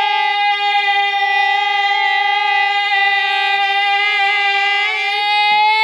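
A voice holding one long sung note, steady in pitch and bending slightly upward near the end: the drawn-out last note of a sung intro jingle.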